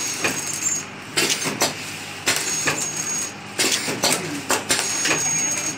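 Pouch packing machine running, its mechanism making sharp metallic clacks and clinks at uneven intervals over a steady hum.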